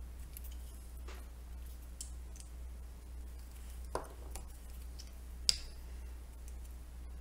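Small plastic food-colouring squeeze bottles clicking against a tabletop as they are handled, set down and picked up. There are a few faint taps, with two sharper clicks about four and five and a half seconds in, over a low steady hum.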